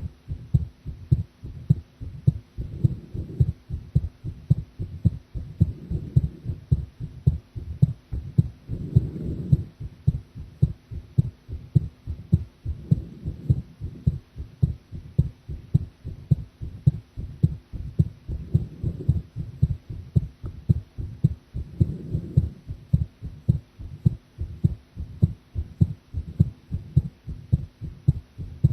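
A woman's heartbeat picked up at the chest: a steady, even rhythm of low lub-dub thumps, with a soft rushing swell every few seconds beneath it.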